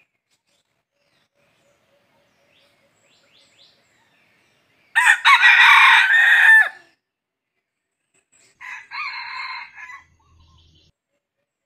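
Red junglefowl rooster crowing: one loud crow about five seconds in, then a second, quieter crow a couple of seconds later.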